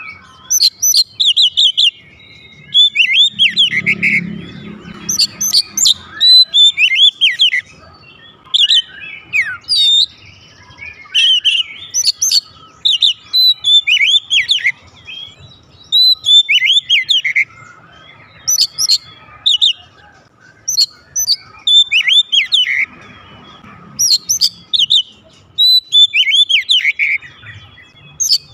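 Oriental magpie-robin singing loudly and without letup: short phrases of sweeping, whistled notes, one after another with brief pauses between them. The bird is in full song, what keepers call gacor.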